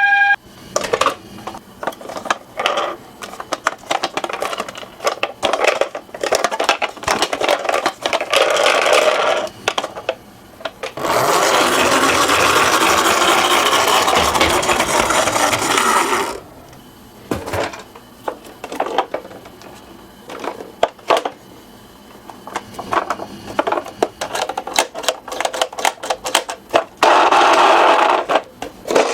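Toy minicars rolling down a slope: wheels rattling and clicking with scattered knocks, and a loud continuous rolling rasp for about five seconds in the middle and again near the end.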